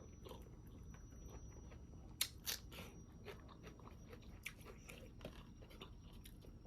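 Faint close-up chewing of a mouthful of pork with crunchy bone and rice: soft, wet mouth sounds with small crackles throughout and two sharper crunches about two seconds in.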